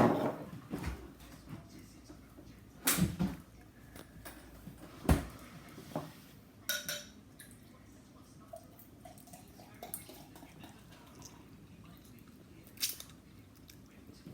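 A fork clinking and knocking against a plate while eating: a handful of separate clinks and knocks spread a few seconds apart.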